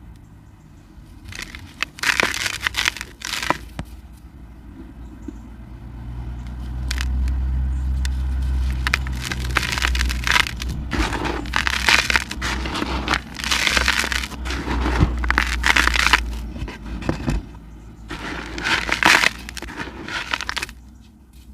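Dry cement chunks being crumbled, a grainy crunching in repeated bursts with short pauses between, and a low rumble beneath the middle bursts.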